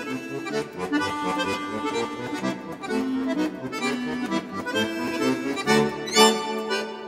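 Accordion music playing a tune, one note following another.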